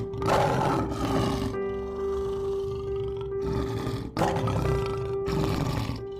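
Rough, noisy animal calls over background music with a long held note. One call is under way at the start and a second begins about four seconds in.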